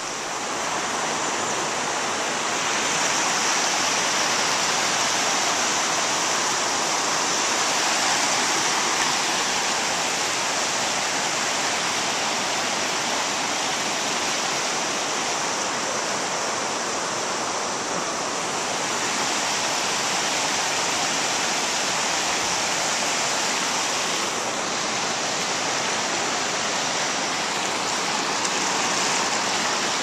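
Steady rushing of a fast-flowing creek and small waterfall, an even unbroken hiss of moving water.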